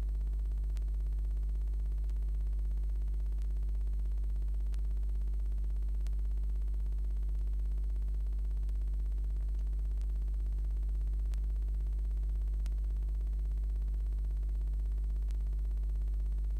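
Steady low electrical hum with a faint, evenly spaced tick about every second and a half; no bird calls or pecking stand out.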